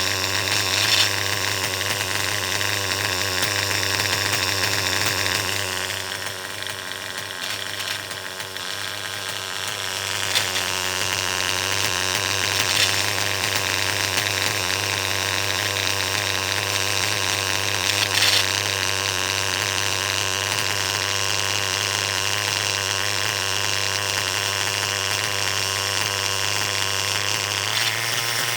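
Engine running at a steady idle, with a few brief ticks on top, about a second in and twice later. The owner is listening for an intermittent random noise inside the engine, which he thinks may be a bearing going out.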